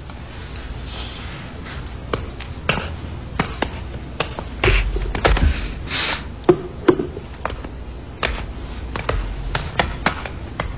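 Irregular sharp taps and knocks, a dozen or more, starting about two seconds in, over a steady low hum.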